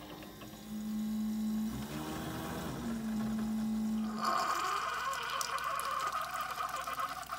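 Keurig single-serve coffee maker brewing: the machine hums steadily for about four seconds, then coffee starts streaming into the mug with a splashing, trickling pour.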